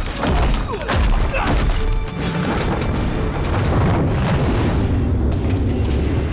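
Battle-scene soundtrack: music mixed with repeated deep booms and crashing impacts.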